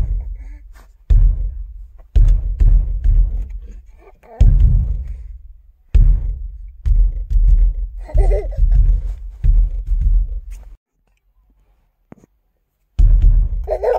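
Heavy low thuds come in runs, several a second, each dying away quickly. A short wavering high voice breaks in about eight seconds in and again near the end. The thuds stop for a couple of seconds near the end.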